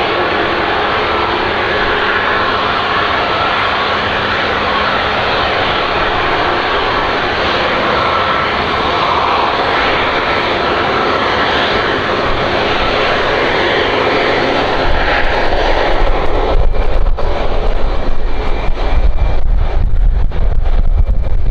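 Boeing 737 MAX 8's turbofan engines at taxi power, a steady jet hiss. About fifteen seconds in the engine noise fades and wind gusts buffeting the microphone take over as the loudest sound, rumbling and thumping irregularly.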